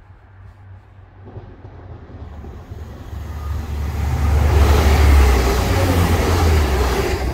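TransPennine Express Class 185 diesel multiple unit approaching and running past at speed: a building rush of wheels on rail with a deep engine rumble, loudest about five seconds in and starting to ease near the end.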